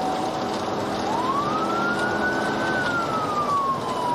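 Police siren wailing over the road and engine noise of a moving cruiser: a steady tone that about a second in rises in pitch, holds briefly, then slowly falls.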